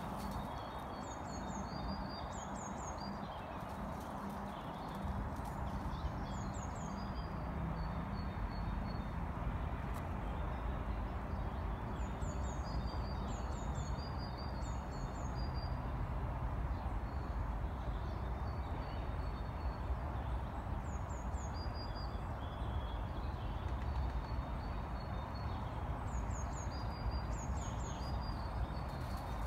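Woodland ambience: a songbird sings short, high phrases of quick falling notes in bursts every five or six seconds, over a steady low rumble.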